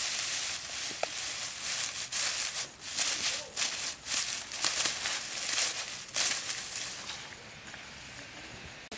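Dry rice straw rustling and crackling as it is gathered and pressed together by hand, coming and going unevenly and dying down near the end.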